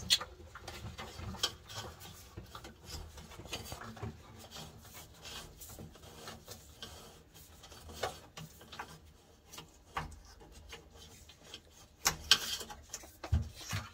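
Hand work on a car's wiring loom: irregular rubbing, scraping and small clicks and knocks as a wiring connection is undone and the cables are handled. A sharper cluster of knocks comes near the end.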